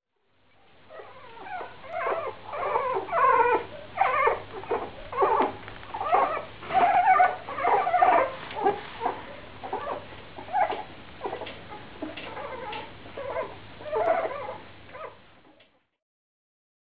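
A litter of young English Cocker Spaniel puppies whimpering and squeaking, many short overlapping calls one after another, over a faint steady low hum. The calls stop about a second before the end.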